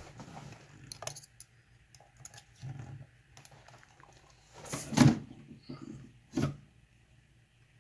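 Metal lock-picking tools clicking and scraping in a lock's keyway as they are set in place, with a few small clicks and two louder knocks, the loudest about five seconds in and another a second and a half later.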